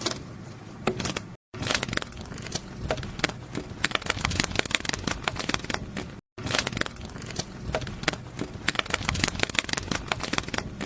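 Sound effect of butterfly wings flapping: an irregular papery crackling flutter of many quick sharp ticks. It breaks off twice for a moment, about a second and a half in and about six seconds in.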